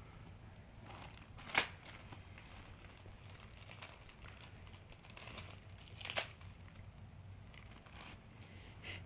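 Crinkling and rustling of a doll's diaper being unfolded and handled. Two sharp, louder crackles come about one and a half seconds in and about six seconds in.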